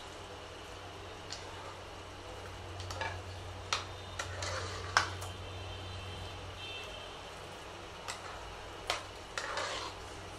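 Steel spoon stirring milk into mashed cooked rice in a pressure cooker pot: soft wet stirring and scraping, with several sharp clinks of the spoon against the metal pot, over a low steady hum.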